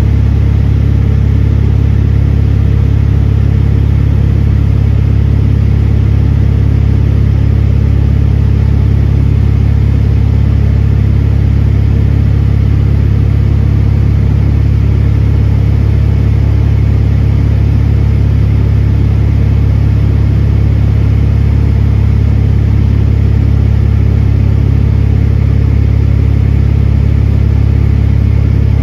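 Aircraft engine noise heard from inside the cabin: a loud, unchanging low drone with a few steady tones above it.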